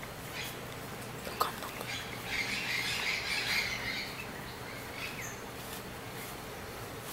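Sturdy, lightweight fabric rustling and rasping as it is pulled through a small opening to turn a sewn scarf right side out, loudest from about two to four seconds in, with a single sharp click a little over a second in.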